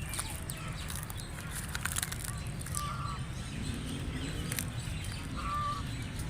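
Wild ducks and other birds calling outdoors, with quick high chirps and two short call notes about three and five and a half seconds in, over a steady low rumble.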